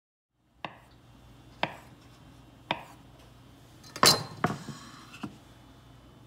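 Knife striking a wooden cutting board as dough is cut into cookie pieces: three sharp knocks about a second apart, then a louder clatter of wooden knocks about four seconds in and one more knock after it.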